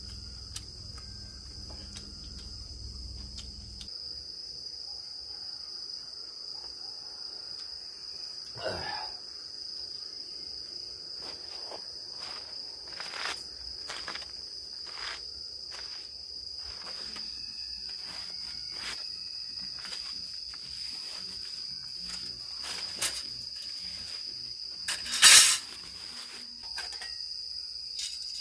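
Crickets chirring in a steady high-pitched chorus. Scattered light clicks and knocks of gear being handled come over it, with one louder clatter near the end, and a low rumble cuts off about four seconds in.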